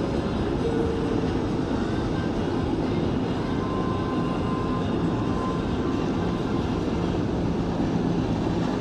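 Steady low rumble of city traffic, even and unbroken, with a few faint steady whines above it.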